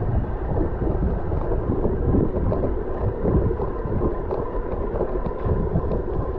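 Wind buffeting the camera microphone on a mountain bike ridden over grass, with tyre rolling noise and faint ticks. A faint steady whine runs under it.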